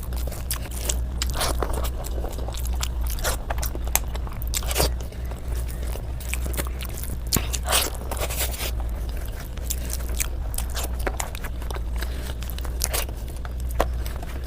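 A person chewing and biting food close to the microphone, with irregular crunches and clicks, over a steady low hum.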